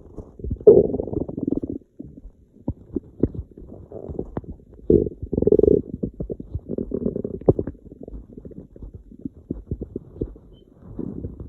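Empty stomach rumbling from hunger: irregular low gurgles and bubbly pops, with longer, louder gurgles about a second in and again around five to seven seconds.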